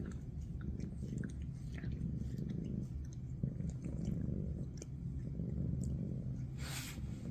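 A Maine Coon cat licks and grooms a kitten's head close to the microphone: soft wet tongue clicks and rasps over a steady low rumble of purring, with a short breathy sniff near the end.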